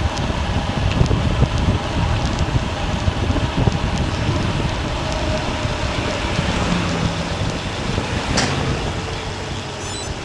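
Wind buffeting the microphone of a camera on a bicycle being ridden on the road, with one sharp click about eight seconds in.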